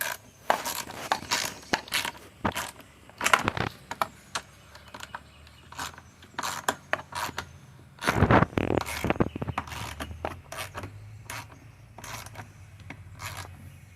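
Tools and metal parts being handled on a lawn mower: irregular clicks, clinks and scrapes, with a louder scraping stretch about eight seconds in.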